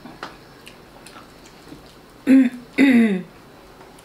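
A person's short two-part vocal sound a little over two seconds in, the second part falling in pitch, over faint scattered clicks of eating.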